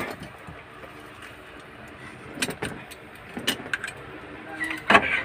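Metal tool clicking and clinking against the number 4 injector fuel-line fitting of a diesel engine as it is worked loose or tightened, a few sharp knocks, the loudest near the end, over a faint steady hum.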